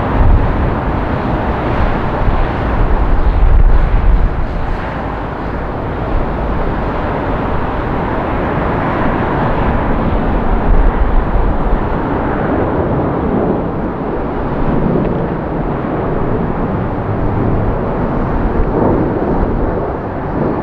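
Airbus A220 airliner's Pratt & Whitney geared turbofan engines at takeoff thrust as the jet lifts off and climbs out, a loud, continuous rumble. The deep rumble is strongest in the first few seconds, and the sound thins a little after about twelve seconds as the jet climbs away.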